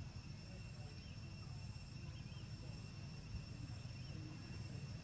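Outdoor insect chorus: a steady, unbroken high buzzing trill over a low rumble, with a few faint short chirps.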